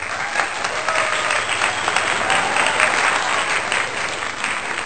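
A crowd clapping, starting abruptly and running steadily: applause set in as an edited-on sound effect.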